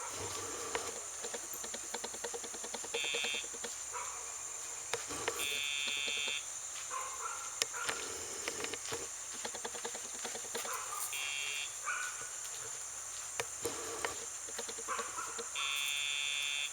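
Sound box on a Dogtra e-collar buzzing four times, each buzz marking a pager vibration being sent to the dog's collar. The buzzes alternate short and long: about half a second, then about a second, then half a second, then a second.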